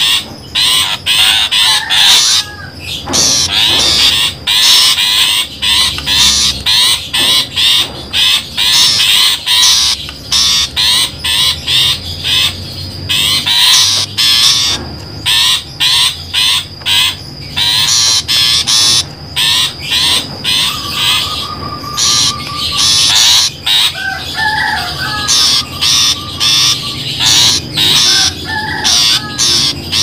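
Long-tailed shrike (pentet) calling: a fast, unbroken series of short, harsh, scolding calls, with a few warbling trills in the second half. This is a bird-trapping lure recording, played to draw wild shrikes in.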